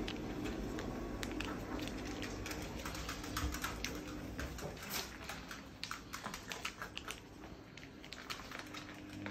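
Light, irregular clicks and taps of footsteps on hard flooring as a person and a cat walk.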